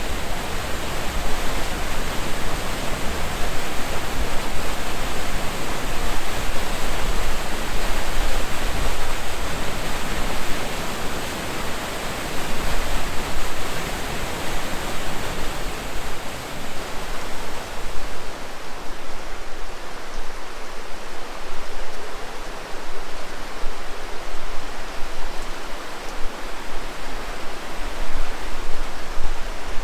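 Fiery Gizzard Creek rushing over rocks: a loud, steady wash of moving water, which turns thinner and less deep about 18 seconds in.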